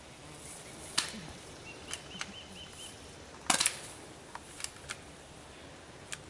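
Airsoft guns firing: a series of sharp snaps spread unevenly, with the loudest cluster about three and a half seconds in and a few smaller snaps after it. Some of the snaps are likely BBs striking.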